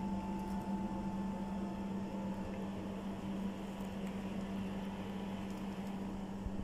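Steady low machine hum with a fainter, higher steady tone over it, and a few faint clicks.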